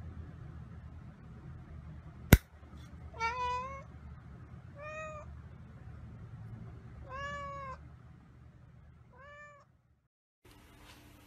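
A single sharp click about two seconds in, then a domestic cat meows four times: short calls that rise and fall in pitch, a second or two apart.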